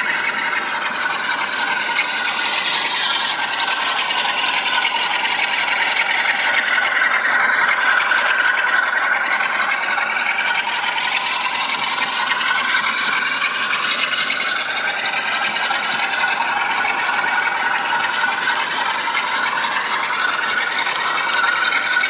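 Model railway train running past: the locomotive and its coaches rattle steadily over the track, with a motor whine that falls in pitch around the middle and rises again.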